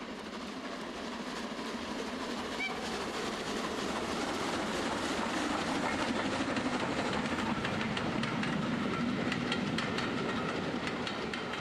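G-scale garden model train running past, its wheels rumbling and clicking over the rail joints; the sound grows louder toward the middle and fades away as it goes by.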